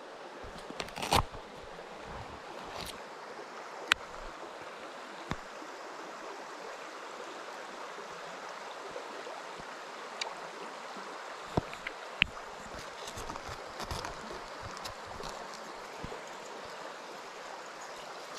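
A small rocky stream runs steadily, with a few short sharp clicks and knocks over it, the sharpest about 4 and 12 seconds in.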